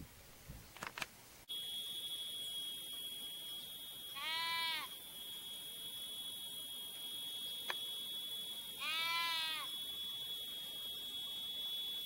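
Two drawn-out bleating animal calls, each under a second long and rising then falling in pitch, about four and a half seconds apart. They sound over a steady high-pitched buzz that starts abruptly about a second and a half in.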